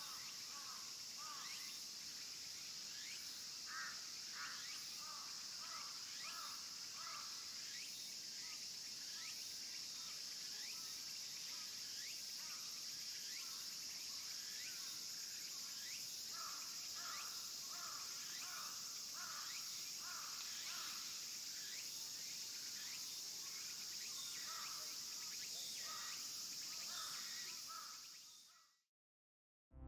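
Outdoor woodland ambience: a steady high insect drone with short bird calls chirping on and off throughout. It fades out shortly before the end.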